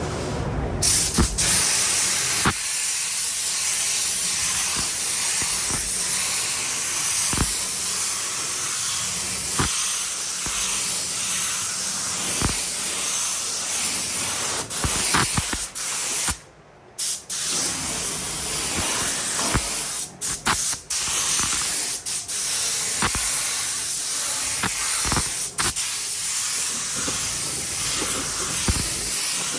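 Compressed-air paint spray gun hissing steadily as paint is sprayed onto a car body. The hiss stops for about a second a little past halfway, and again briefly a few seconds later, as the trigger is released.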